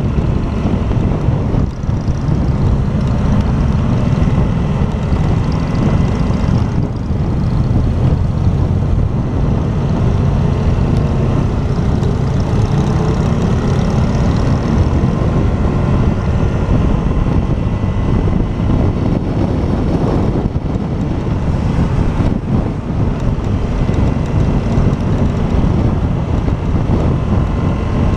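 Motorcycle engine running steadily on the move, a loud low rumble mixed with wind noise on the microphone.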